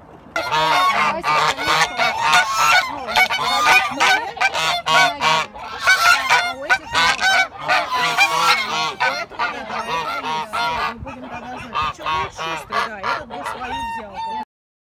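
A flock of white domestic geese honking, many calls overlapping without pause. The calling starts about half a second in and cuts off abruptly near the end.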